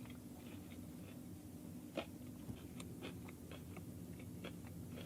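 Faint chewing of a mouthful of fried chicken sandwich, with scattered soft crunches and clicks, one louder about two seconds in, over a low steady hum.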